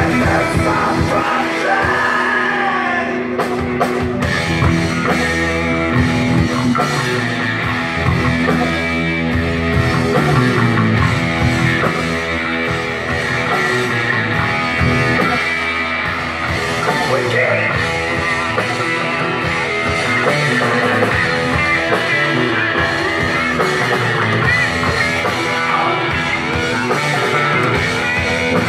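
Live rock band playing: a drum kit and electric guitars, with a vocalist singing into a microphone.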